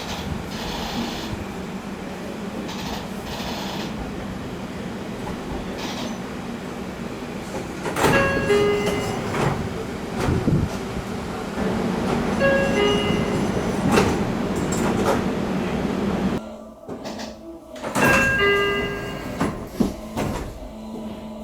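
Door chimes and sliding doors on Seibu 40000 series trains, over the steady hum of the car's equipment. The L/C car's multi-tone door chime, much like the 30000 series chime, sounds twice, around a door knock and a closing thud. After a cut, the long-seat 40050-series car's different chime, close to the 001 series Laview's, sounds once.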